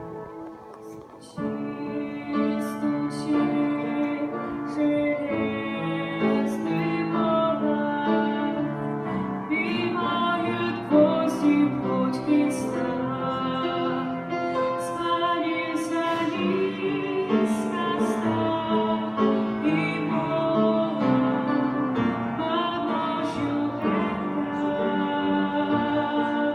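Female voices singing a slow song in Russian over piano accompaniment; the singing and fuller accompaniment come in about a second and a half in, after a quiet moment.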